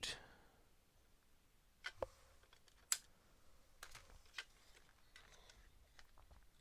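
Faint handling sounds with a few sharp, small clicks and some lighter ticks: nylon cable ties being worked onto the wires and tightened.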